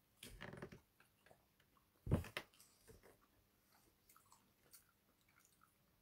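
Quiet chewing and mouth noises from a man eating cherries, with a brief louder mouth sound about two seconds in and scattered light clicks.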